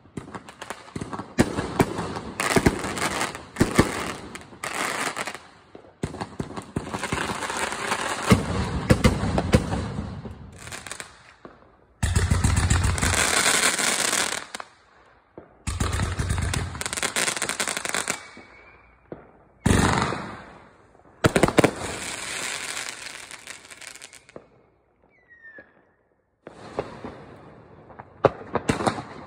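Fireworks going off: aerial shells bursting and crackling in quick runs of bangs and rapid crackle, broken by a few short pauses, the longest about two thirds of the way through.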